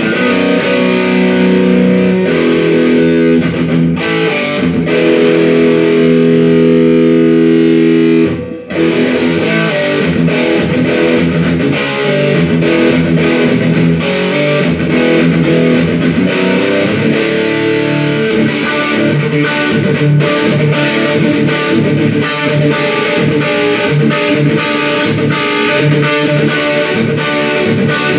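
Distorted electric guitar played through a Fender Deluxe 112 Plus solid-state combo amp. Held chords ring for the first eight seconds or so, then there is a brief break and faster picked riffs follow.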